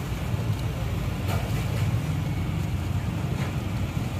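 Steady low rumble of passing street traffic, with a couple of faint clicks.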